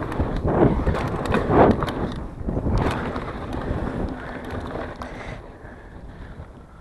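Wind buffeting the microphone of a mountain bike's on-board camera while the tyres roll over packed dirt jumps, with scattered clicks and rattles from the bike. The noise surges loudest over the first two seconds and again near three seconds, then fades toward the end.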